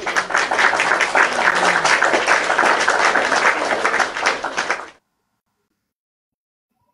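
Applause from a crowd, many hands clapping densely, cut off suddenly about five seconds in.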